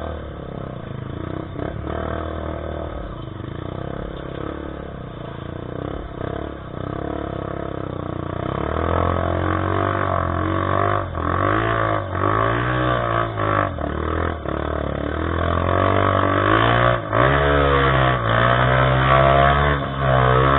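Trail motorcycle engine running, then revved up and down over and over from about halfway through, getting louder toward the end.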